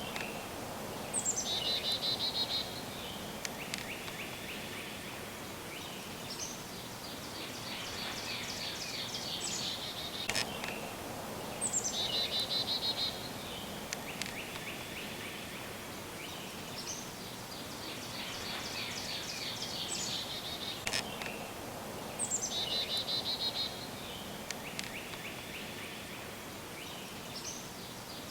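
Wild songbirds singing in spring woodland: two different high, rapidly trilled songs alternate about every five seconds, one opening with a sharp downward slur into a fast trill. Faint steady outdoor background hiss throughout.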